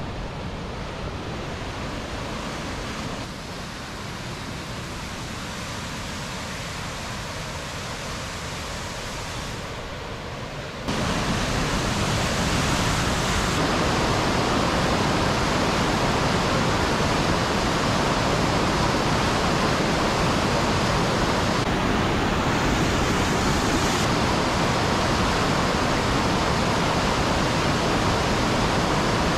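Mountain river rushing through a narrow rock gorge as white-water rapids and a small waterfall: a steady rush of water that gets suddenly louder about eleven seconds in.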